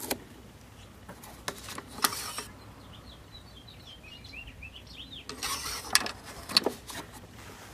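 Handling noises from a push mower's plastic fuel and oil-fill caps: scattered clicks and knocks, with a busier patch of scraping and knocking about five to seven seconds in. In the quieter middle stretch, small birds chirp faintly in the background.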